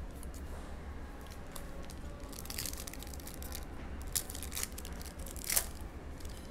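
Foil trading-card pack being torn open, its wrapper crinkling and crackling, with a sharp snap a little past four seconds in and the loudest crackle about a second before the end.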